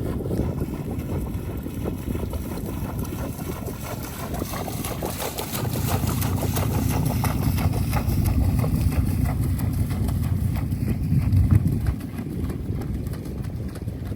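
A horse's hooves clip-clopping over a steady low rumble, which grows louder through the middle and drops back near the end.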